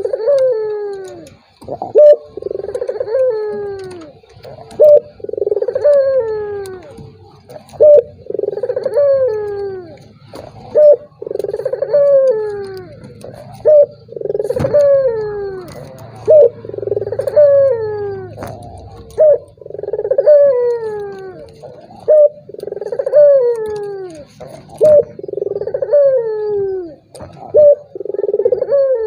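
Puter dove cooing over and over, one phrase about every three seconds: each opens with a sharp, very loud note and runs into falling, rolling coos. It is a lure recording played to set other puter doves cooing.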